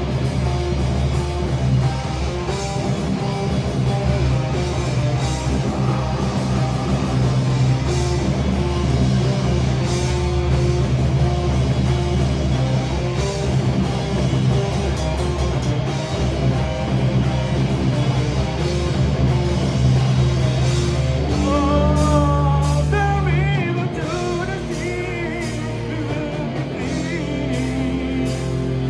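Heavy metal band playing live, with distorted guitars, bass and drum kit, in a dense, steady instrumental passage. Near the end a wavering high melody line rises over the band.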